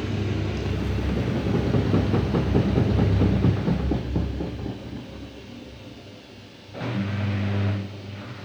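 Daewoo DWD-FT1013 washing machine spinning with an unbalanced load: a heavy rumble with rapid knocking as the off-balance drum bangs around, dying away over the next few seconds as the spin winds down. About seven seconds in, a brief louder hiss and hum comes on, then drops to a quieter steady hum.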